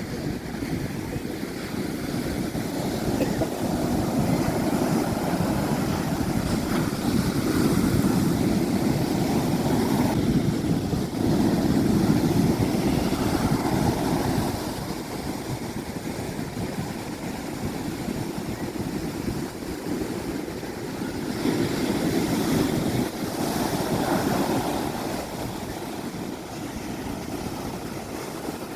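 Sea waves breaking and washing on the shore, the surf swelling and easing every few seconds.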